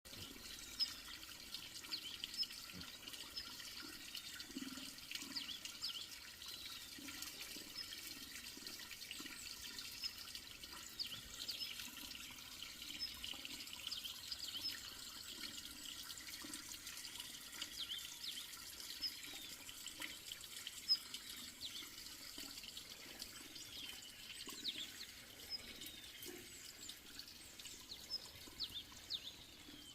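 Water trickling and dripping steadily, with many small sharp high plinks.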